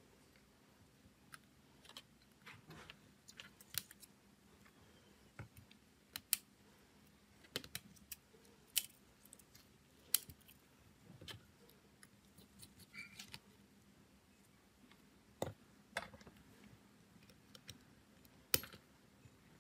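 Scattered small clicks and taps, irregular and sharp, from tools and small parts of a smartphone being handled during repair, over a faint low hum.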